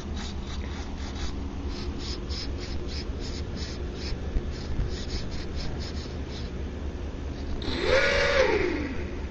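Electric motors and propellers of a small RC dual-prop foam model run up briefly near the end, a whirring whine that rises in pitch, holds a moment, then falls as they spin down: a throttle test before launch. Before that there is only a low steady rumble of wind on the microphone.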